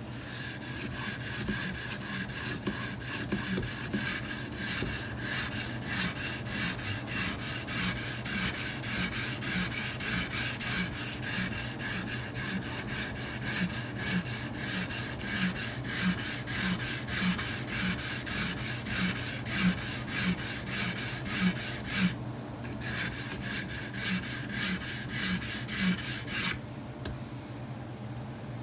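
Wet 220-grit sharpening stone on an Edge Pro guided sharpener scraping in steady back-and-forth strokes along a steel knife edge, resetting the edge of a rolled blade. There is a brief pause in the strokes about 22 seconds in, and the scraping stops near the end.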